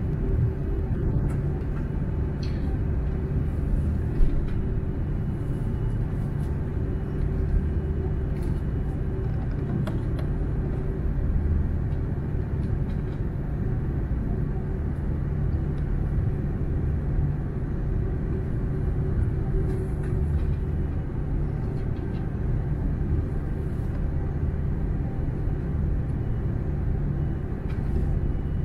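Steady low cabin rumble of an Airbus A330-300 taxiing, heard from a seat beside the wing, with its Rolls-Royce Trent 700 engines running steadily at low power. A single sharp click about four seconds in.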